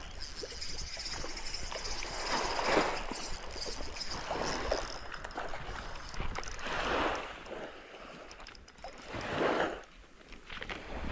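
Small waves washing and sloshing against the shore, a swell of water noise coming and going about every two seconds.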